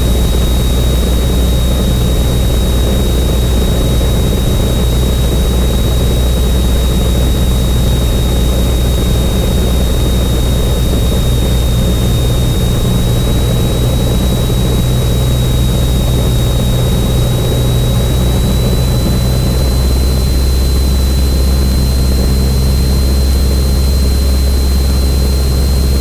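Cessna 172N's four-cylinder Lycoming O-320 engine and propeller droning steadily in cruise, heard from inside the cockpit. A thin high whine runs through it and rises slightly in pitch in the second half.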